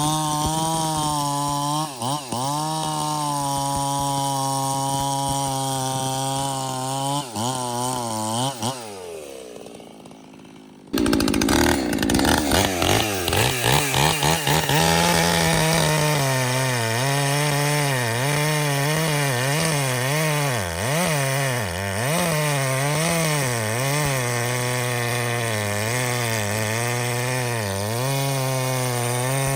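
Gas chainsaw cutting at high revs, with its pitch dipping and recovering under load. About eight seconds in the engine winds down and drops away. Around eleven seconds a saw comes in suddenly at full throttle and keeps cutting, its revs wavering as the chain bites.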